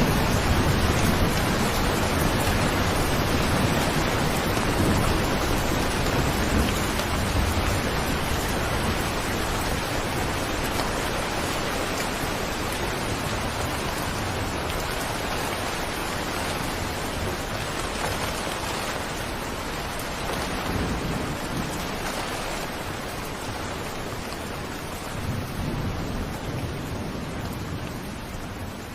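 Steady heavy rain with low rumbles of thunder, strongest at the start and again near the end, the whole sound slowly fading out.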